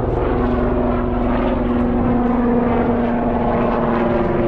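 Helicopter flying low overhead: a loud, steady engine-and-rotor drone with a steady hum in it.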